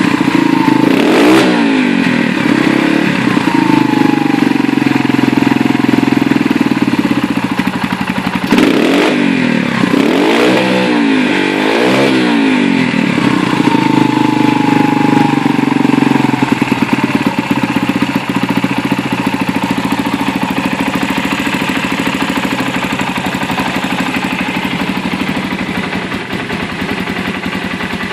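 GasGas TX Randonne 125 trail motorcycle engine running through a Mitani titanium exhaust and being revved: short throttle blips and two stretches held at high revs for several seconds, then settling to a steadier, lower run.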